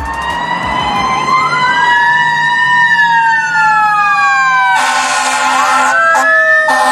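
Electronic emergency-vehicle siren wailing, two tones slowly rising and falling out of step with each other. A harsh buzzing horn blast cuts in about five seconds in for about a second, and again near the end.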